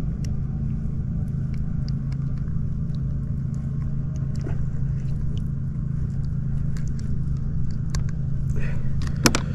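An engine or motor running steadily with a low, even hum, with scattered light clicks and taps and a sharper knock near the end.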